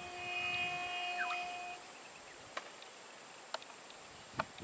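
Steady high-pitched insect drone from the roadside vegetation. For about the first two seconds a held tone with several pitches sounds over it, and three short sharp clicks come later.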